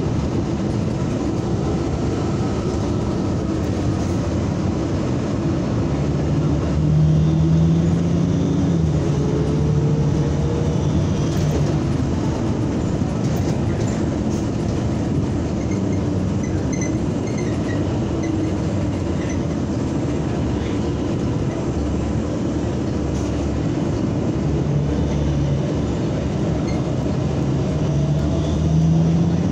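A NABI 45C-LFW natural-gas city bus in motion, heard from inside the cabin: steady engine and road rumble. A whine rises twice as the bus pulls, about ten seconds in and again near the end.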